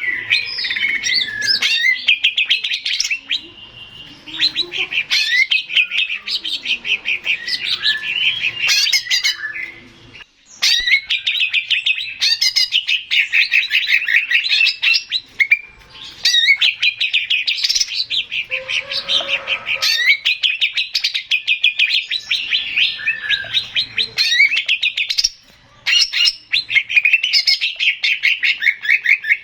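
Male green leafbird (cucak ijo) singing a loud, fast, high-pitched run of trills, chatter and whistled notes, with brief pauses a few times.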